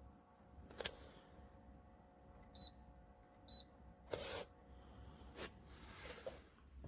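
Two short electronic beeps about a second apart from the medisana AH 663 humidifier's control panel as its buttons are pressed. Before them comes a sharp click, which a faint steady hum stops with, and after them a short rustle.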